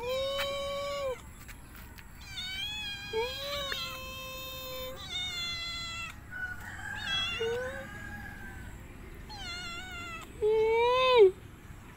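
Calico cat meowing over and over: about half a dozen drawn-out meows, some rising and falling in pitch. The loudest and longest comes near the end.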